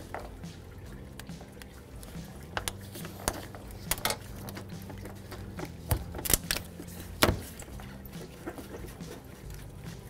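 Scattered light clicks and knocks from hands and tools working the upper radiator hose free in the engine bay, a few of them sharper, over a low steady hum.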